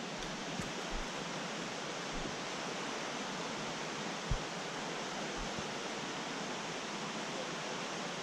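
Fast mountain creek rushing over rocks, a steady even rush of water, with a few soft low thumps, the loudest about four seconds in.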